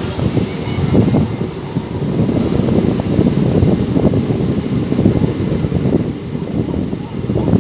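Passenger express train running on the rails: a steady low rumble of the coaches' wheels on the track, with irregular knocks from the rail joints.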